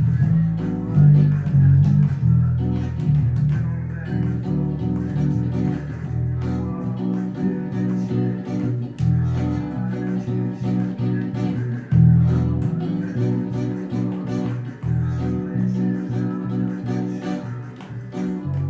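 Guitar music: plucked and strummed guitar over a bass line that changes note every second or two.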